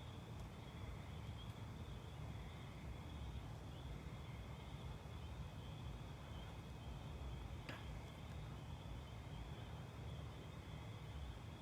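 Evening insect chorus at a lakeside, a steady high-pitched trilling over a low background rumble, with a single faint click partway through.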